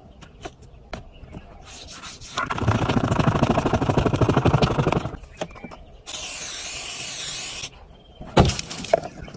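Paper stencil sheets rubbed and pressed against car window glass: a loud, fast crackling rasp for about two and a half seconds. Then a steady hiss of an aerosol spray-paint can for about a second and a half, stopping abruptly, and a sharp click near the end.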